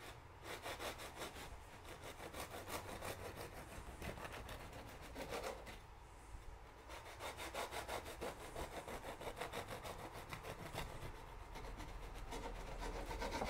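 Serrated bread knife sawing through the crust and soft crumb of a loaf of white bread on a wooden board, in quick back-and-forth strokes. Two slices are cut, with a short lull about halfway through.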